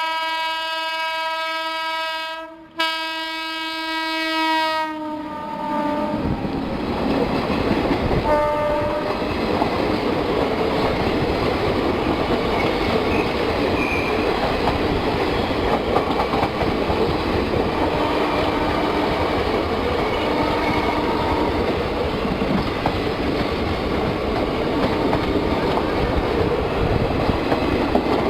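WAP7 electric locomotive's air horn sounding a long blast, broken briefly about three seconds in, that stops around five seconds in, with a short toot a few seconds later. Then the loud steady rumble and wheel clatter of the express train running past fills the rest.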